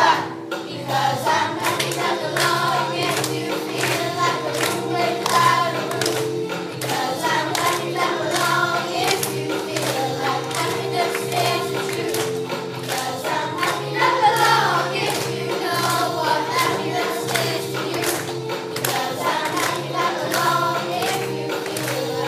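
A song with several voices singing over held backing chords and a steady beat.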